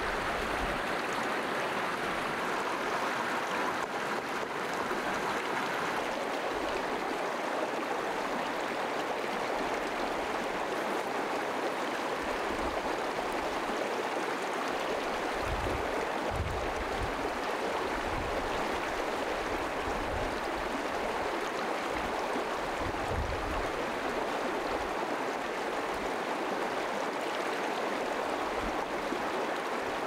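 Shallow creek running over rocks: a steady rush of water, with a few brief low rumbles in the middle and later part.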